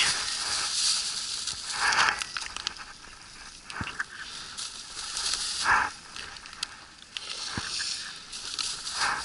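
Thin plastic bag crinkling and rustling as caught Amur sleeper (rotan) fish are put into it, in three louder swells, with a few short knocks.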